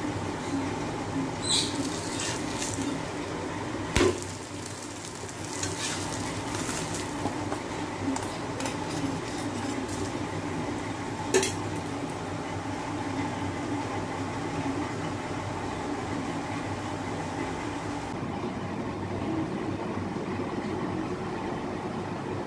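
An egg omelette sizzles on a flat griddle pan while a metal spatula scrapes and knocks against the pan, with three sharp clinks. The sizzle drops away near the end.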